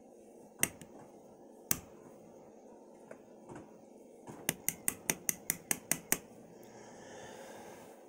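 Small, sharp metallic clicks from a brass padlock plug being handled as its pin tumblers are worked out. Two single clicks, then about two seconds of quick clicking, roughly five a second.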